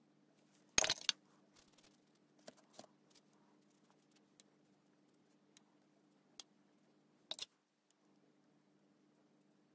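Sharp little clicks and clinks of a paintbrush knocking against the pans of a watercolour palette while paint is picked up. The loudest pair comes about a second in, fainter single clicks are scattered after it, and a double clink comes near the end, over a faint steady hum.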